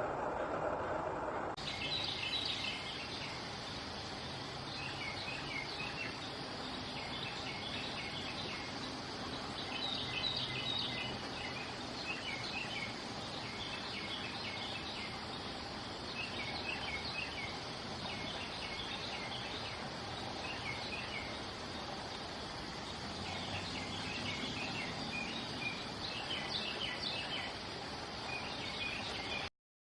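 Small birds giving quick, high chirps in short clusters every second or two over a steady hiss of background noise. The first second and a half holds a different, lower background sound before it changes abruptly.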